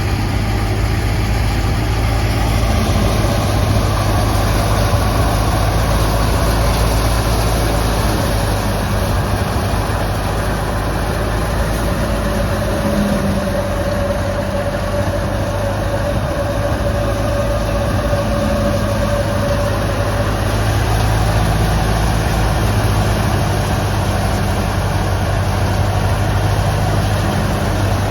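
Wheat thresher machinery running steadily: a constant heavy engine hum with a steady whine over it.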